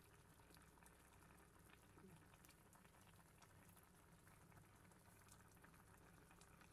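Laksa broth simmering in a pot: faint, soft bubbling with scattered small pops.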